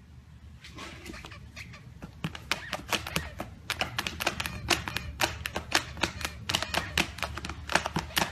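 A puppy's claws and paw pads tapping and scratching quickly on a tablet's glass screen: a rapid, uneven run of clicks that gets louder and denser after about two seconds.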